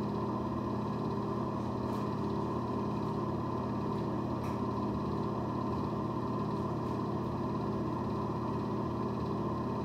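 Steady machine hum, like a running fan or motor, with a couple of faint ticks about two and four and a half seconds in.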